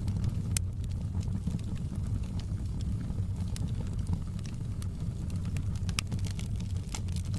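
Fire burning in a fireplace: a steady low rumble of flames with sparse sharp crackles and pops, the loudest about half a second in and around six seconds in.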